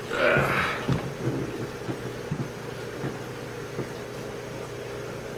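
Handling noise from a handheld camera being moved in close to an aquarium: a brief rustle at the start, then a few light knocks over a steady low hum.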